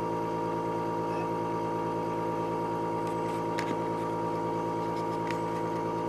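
A steady machine hum: one clear high tone over a lower drone, unchanging, with two faint ticks partway through.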